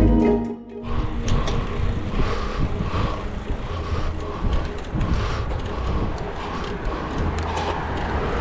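Background music with plucked strings cuts off about a second in. It gives way to wind buffeting the microphone and a steady road rumble from riding a road bike at speed.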